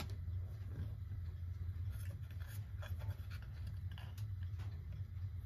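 Faint clicks and scrapes as pliers are handled and set on the small nut at the centre of a clock's hands, over a steady low hum.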